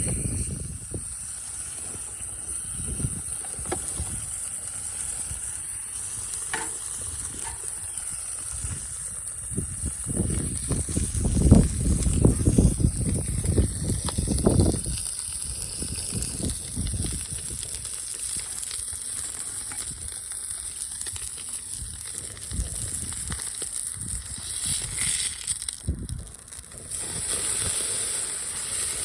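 Food sizzling on a grill, a steady hiss, with low rumbles of wind on the microphone about ten to fifteen seconds in.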